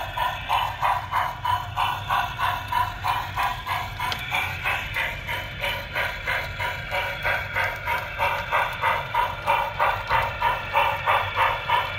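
QSI Titan sound decoder in an HO scale Santa Fe Northern steam locomotive, playing steam chuffs through the model's small onboard speaker in a steady rhythm of about three chuffs a second as the locomotive runs.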